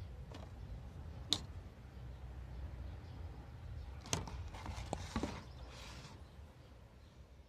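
Faint handling of small plastic parts on a tabletop: one sharp click about a second in, then a few light knocks and clicks a little past halfway, over a low steady hum.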